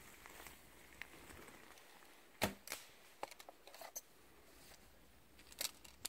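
Shot from a compact fibreglass-and-ash hunting bow with raccoon-fur string silencers: one dull, sharp thump about two and a half seconds in, followed by a few lighter clicks and knocks.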